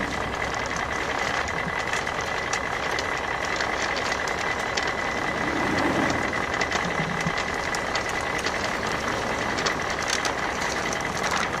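Bruder toy truck driving off, with a steady engine-like running sound and many small clicks and rattles.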